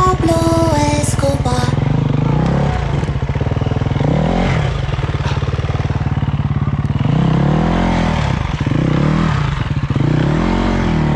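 Dirt bike engine running at low revs, with the revs swelling up and back down a few times in the second half.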